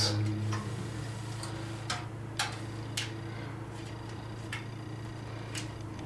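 About half a dozen light, sharp metallic clicks and taps at irregular intervals, from small screws and thin sheet-metal can and colander parts being handled. A steady low hum runs underneath.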